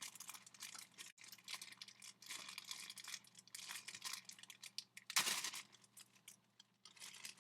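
Plastic packaging crinkling as it is picked and torn open with fingernails: scattered crackles, with one louder tear about five seconds in.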